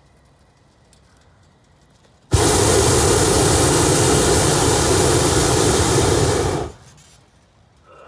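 Hot air balloon's propane burner firing one blast of about four seconds into the envelope during hot inflation: a steady roar that starts sharply about two seconds in and cuts off suddenly.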